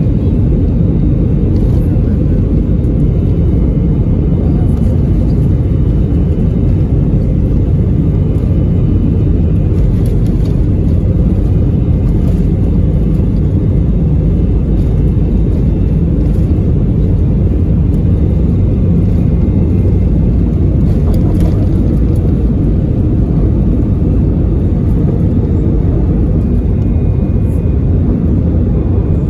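Airbus A321's CFM56 jet engines at takeoff thrust, heard inside the cabin over the wing: a loud, steady rumble through the takeoff roll and lift-off.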